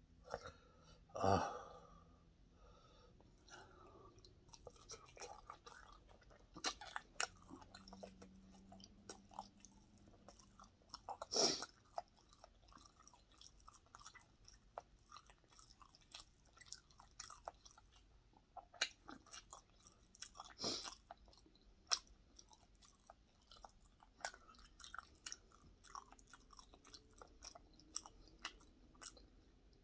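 A man chewing mouthfuls of breaded pork cutlet close to the microphone: many small wet mouth clicks and crunches, with a few louder sharp sounds about a second in, near the middle and about two-thirds through.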